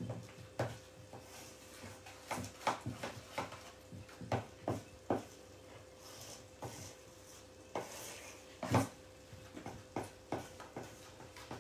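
A spoon clicking and scraping against a metal mixing bowl while a thick chocolate cream is stirred, in irregular knocks with the loudest about nine seconds in.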